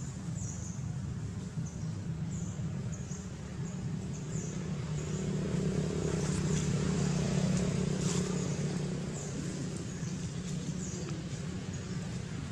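Low motor drone, like a vehicle's engine off in the distance, growing louder toward the middle and then fading. Faint short high-pitched sounds are scattered through it.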